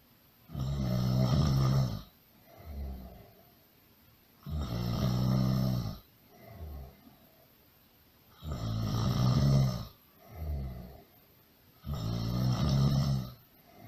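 Loud snoring in a slow, steady rhythm: four long snores about four seconds apart, each followed by a shorter, softer breath.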